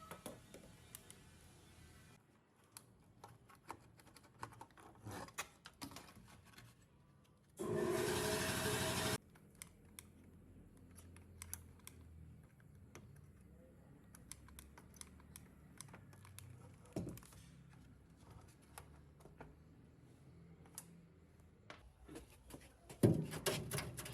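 Small clicks and taps of hands handling tools and parts at a workbench, with one steady noisy burst lasting about a second and a half around eight seconds in, and a cluster of louder knocks near the end.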